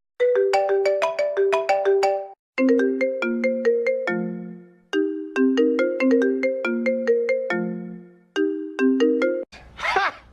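A phone ringtone: a bright melody of quick struck notes, played in phrases with short pauses between them. Near the end it gives way abruptly to a different sound.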